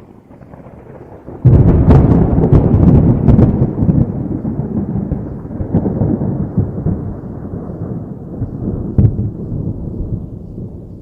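Thunderclap: a faint rumble, then about a second and a half in a sudden loud crack with sharp crackling, rolling on into a long low rumble that slowly fades, with one more crack near the end.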